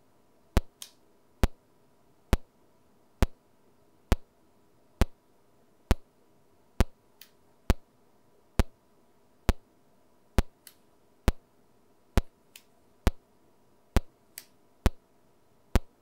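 Sharp, evenly spaced test clicks, a little more than one a second, played through an audio transformer test chain. A few fainter clicks fall between them, over a faint steady hum.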